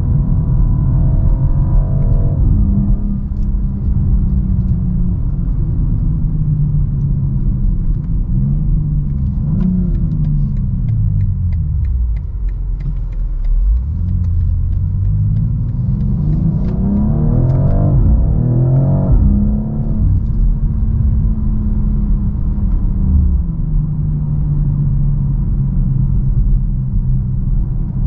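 Cabin sound of the 2023 BMW X4 M Competition's twin-turbo inline-six under way: revs climb and drop with a gear change near the start, fall away as the car slows about a third of the way in, then climb hard again with another shift before settling into a steady cruise. The engine note is partly piped into the cabin through the speakers.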